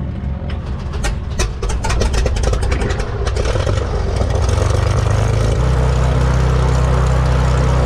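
Small Cessna plane's piston engine starting up: it fires unevenly with a rapid, irregular run of clicks and pops over the first few seconds, then steadies into an even, louder run about halfway through.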